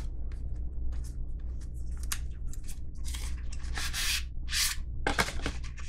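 A small knife box being worked open by hand: a run of short, irregular scraping and rubbing noises of packaging, with a few longer scrapes about three to five seconds in.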